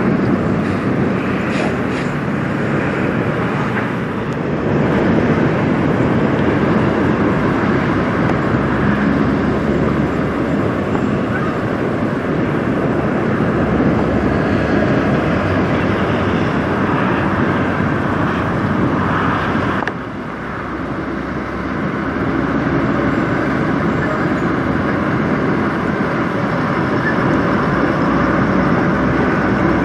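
Peterbilt semi tractor's diesel engine running as the truck rolls slowly past, with road traffic noise behind it.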